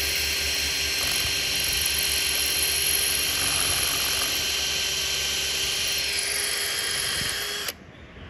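Electric drill in plain drilling mode running steadily at speed as a small bit bores into a masonry wall, cutting off abruptly near the end.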